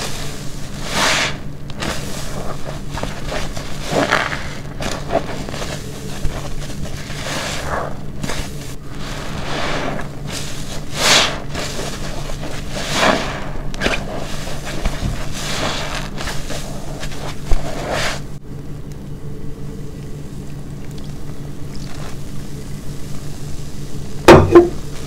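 A black car-wash sponge soaked with shampoo being squeezed and released by hand: wet, foamy squishing strokes about every one to two seconds, then a quieter stretch. A short, sharp, louder noise comes near the end, over a low steady hum.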